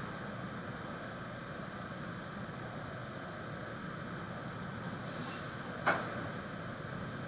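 Dry-erase marker squeaking briefly on a whiteboard as it writes, a few short squeaks about five seconds in followed by a light tap, over a steady background hiss.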